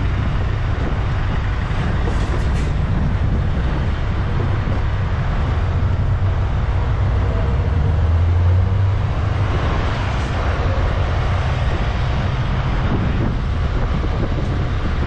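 Heavy truck's diesel engine running at low revs as the long truck combination reverses slowly. The low rumble swells briefly about eight seconds in.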